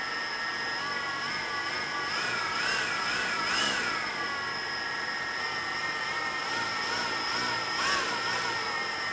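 Brushless T-Motor MN2214 motors on a DJI Phantom Vision quadcopter spinning its props at idle, a smooth steady whine. Its pitch rises and falls several times as the motors speed up and slow down, during the first few seconds and again near the end.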